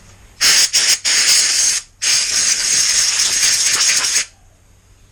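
A pressurised jet hissing onto the cleaned brake caliper half: three short blasts, then one long blast of about two seconds that cuts off sharply.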